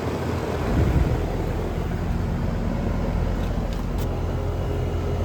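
York central air conditioning condenser running: a steady low compressor hum under the even rush of its condenser fan, growing a little louder about a second in.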